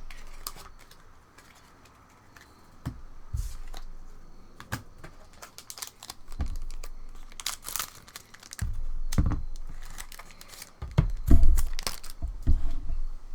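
Trading-card booster pack wrapper crinkling and being torn open, with scattered clicks and rustles of cards being handled, busier and louder in the second half.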